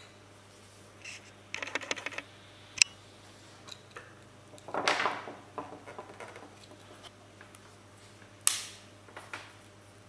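Small screwdrivers prying at the seam of a plastic car key fob shell: scraping and sharp clicks of screwdriver tips on plastic, with a quick run of small clicks early and a longer scraping crackle around the middle. The loudest are two sharp clicks, a few seconds in and near the end.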